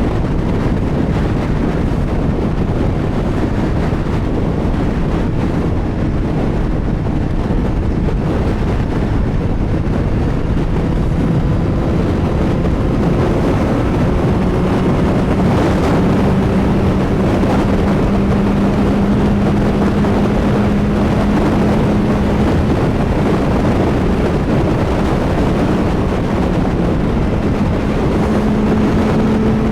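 CFMoto 675SR-R's three-cylinder engine running at highway speed under heavy wind noise on the microphone, its note climbing slowly through the second half.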